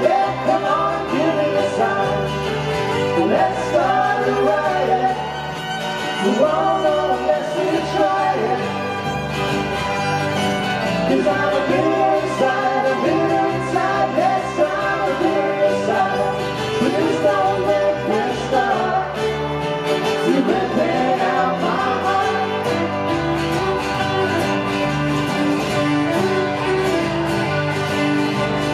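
Live band playing a song on electric and acoustic guitars, bass and drums, with a wavering lead melody line over the chords.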